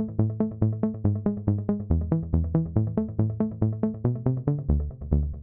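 Electronic background music: quick, evenly pulsing synth notes, about five or six a second, over a bass line that steps between notes.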